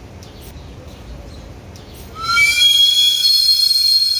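A street vendor's cart steam whistle, the kind a Mexican sweet-potato seller (camotero) uses to announce himself. It starts about two seconds in with a short rising note and settles into a loud, shrill, steady whistle, over a low rumble of street noise.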